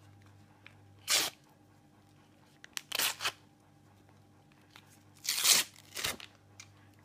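Shiny paper-and-foil wrapper of a Panini football sticker packet being torn open and crinkled by hand, in four short crackly bursts, the loudest about five and a half seconds in.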